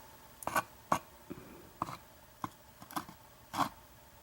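Small clicks and light taps of tiny metal lock parts, pins and springs from a gutted padlock, being handled and set down on a surface. About eight separate clicks come spaced irregularly, roughly one every half second.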